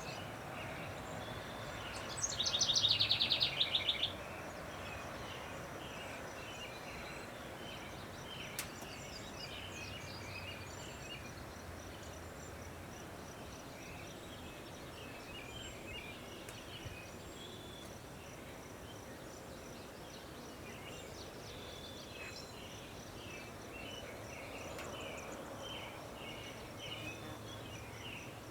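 Birds singing and calling in an open field: a loud, rapid trill about two seconds in lasting about two seconds, then many short chirps, with a faint steady high-pitched buzz throughout.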